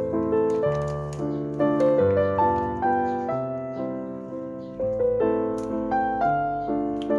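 Background music: a piano melody over held chords, its notes struck one after another in an even rhythm.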